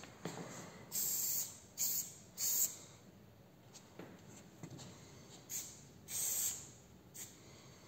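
Aerosol spray paint can sprayed in six short hissing bursts, each under a second, with pauses between.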